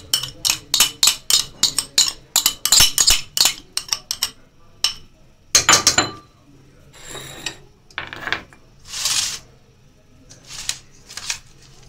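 A metal spoon clinking rapidly against a glass of beaten egg, then knocking and scraping in a steel bowl as the egg is stirred into marinated chicken pieces.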